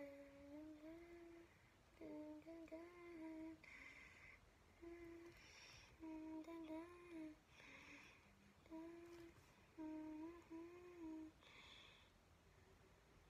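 A child humming a short tune softly to herself, in several brief phrases with pauses between them.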